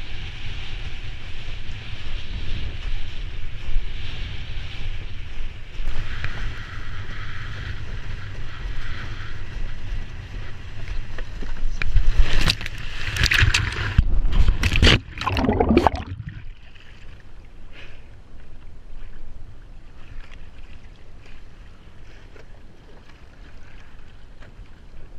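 Wind buffeting the microphone and water rushing past a windsurf board under sail. About halfway through come several loud splashes as the sailor goes down, followed by gentle water lapping around the floating board.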